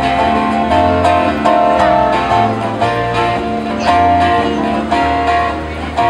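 Live Hawaiian string trio of acoustic guitar, ukulele and bass guitar playing a steady tune with held, changing notes over a bass line, heard through a PA speaker.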